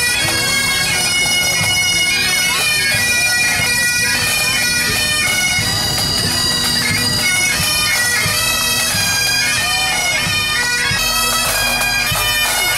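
Pipe band of Great Highland bagpipes playing a marching tune over their steady drones.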